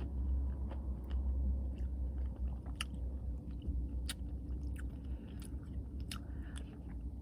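Chewing and biting on a mouthful of caramel toffee cookie Blizzard, soft ice cream with toffee and cookie pieces, with scattered small clicks and crunches over a steady low hum.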